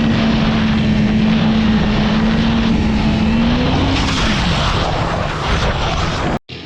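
Motorcycle engine of a 2014 Yamaha R6 running at steady high revs under heavy wind noise, its pitch rising a little and then dropping off about four seconds in. The sound cuts off abruptly just before the end.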